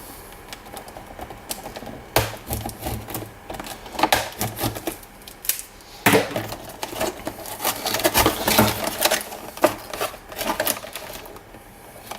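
Packaging being unpacked by hand: irregular clicks, knocks and rustles in several clusters as pieces are lifted out of the box.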